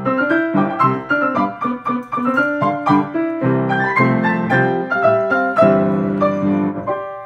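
Piano music: a quick succession of notes over chords, played without pause.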